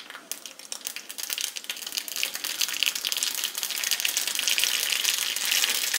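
Mustard seeds crackling and popping in hot coconut oil in a small pan, the pops growing denser and louder as the seeds start to splutter. That spluttering is the sign that the oil is hot enough for tempering.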